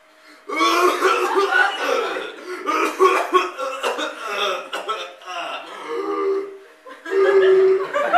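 A man's loud, acted coughing fit, hacking in repeated bouts with a short lull near the end.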